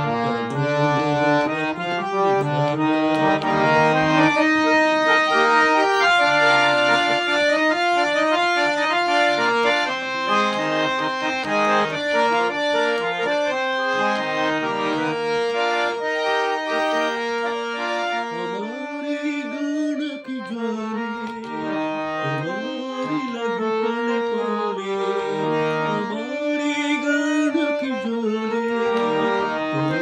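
Hand-pumped harmonium with three sets of antique Paris reeds playing a melody of held, reedy notes. Several reed sets sound each note together, giving a full, steady tone that changes pitch from note to note.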